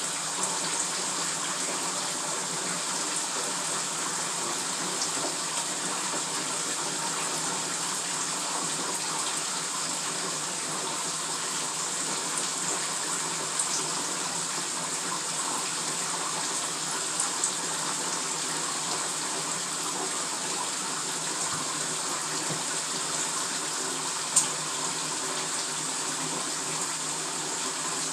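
Bathtub tap running steadily into a filling tub, with a few light clicks over it, the sharpest late on.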